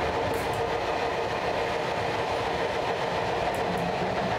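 Running noise of a moving passenger train heard from inside the carriage: a steady rumble with a constant hum. Two pairs of brief high clicks come, about half a second in and again near the end.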